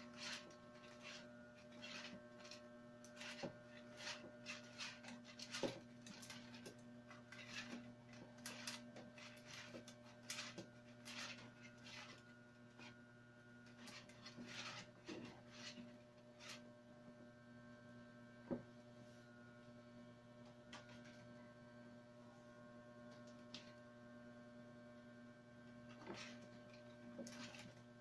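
Light clicking and scraping of stiff wicker strands being woven over and under, thick in the first half and sparser after about halfway, over a low steady electrical hum.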